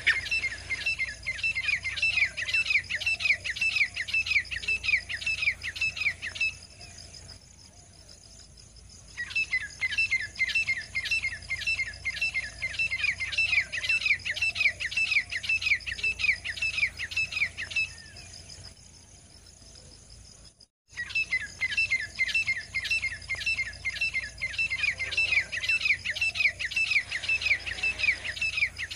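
Female grey francolin calling: rapid series of sharp, falling notes, about four a second, in three bouts broken by short pauses.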